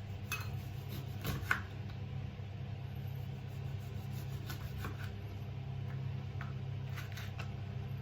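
A knife slicing a lemon on a cutting board: a few scattered short taps over a steady low hum.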